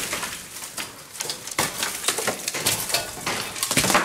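An old plaster-and-reed ceiling being broken down with a long metal pole: irregular scraping and cracking, with bits of plaster and debris crumbling down in bursts.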